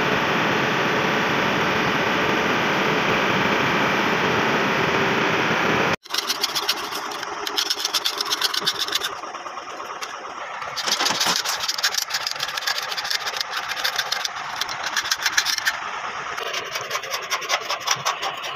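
Hand sanding of the crane's flaking painted steel pillar: fast rasping strokes of abrasive paper on metal, rubbing down the old paint before repainting. Before it, for about the first six seconds, there is a steady loud noise that cuts off abruptly.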